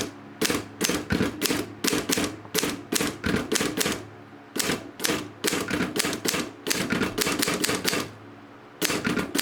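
A 1969 Olympia SG3 manual desktop typewriter being typed on: an irregular run of sharp key strikes, a few a second, with brief pauses about four seconds in and near the end.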